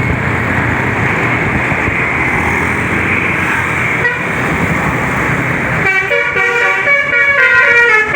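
A loud steady rushing noise, then about six seconds in a bus's Basuri telolet horn starts playing a melody on several horn tones at once, stepping up and down in pitch.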